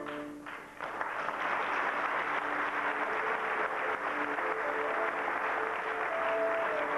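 Music ends on a held note, and about a second in an audience breaks into steady applause; music starts up again under the clapping near the end.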